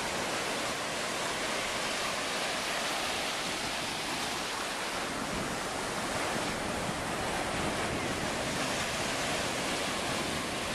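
Small ocean waves breaking and washing through shallow surf: a steady rush of water.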